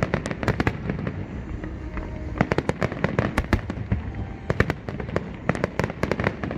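Fireworks going off: a dense run of sharp bangs and crackling pops, coming in clusters over a continuous low rumble.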